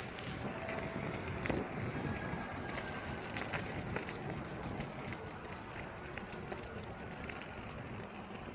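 Ninebot rolling over a gravel road: a steady rumble of tyres on loose stones, with scattered small clicks and rattles.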